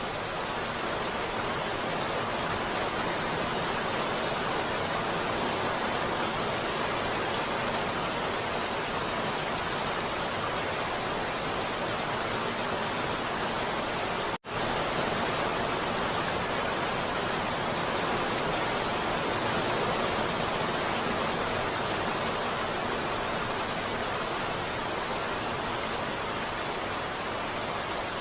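Heavy rain falling steadily as an even hiss, broken by a momentary cut to silence about halfway through.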